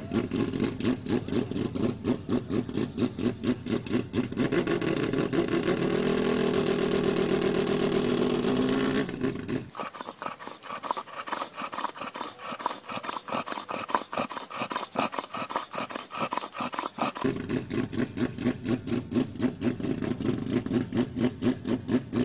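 Mazda 787B's four-rotor rotary engine idling with a lumpy, pulsing brap-brap, held briefly at higher revs partway through. About ten seconds in it gives way for roughly seven seconds to a boxer dog panting in a quick, even rhythm. Then the rotary idle returns.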